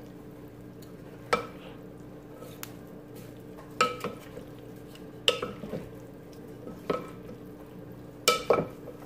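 Wooden spoon stirring shrimp and diced vegetables in a slow cooker's glazed stoneware crock. The spoon knocks sharply against the crock about six times, at irregular intervals, each knock ringing briefly.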